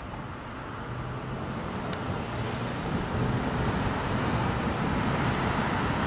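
Street traffic: engine and tyre noise of passing vehicles, growing steadily louder over several seconds as a vehicle approaches.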